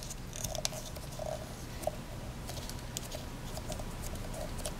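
Play-Doh being pressed and kneaded by hand into a plastic mold: quiet soft squishing with scattered small clicks and taps of fingers against the plastic.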